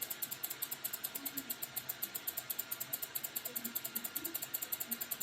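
Washing machine mechanism clicking fast and evenly, about nine sharp clicks a second, like a ratchet.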